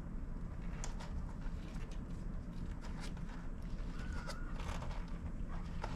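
Faint, short high squeaks of newborn kittens about four seconds in, with scattered small clicks and rustles from the mother cat and the bedding in the nesting box, over a steady low background rumble.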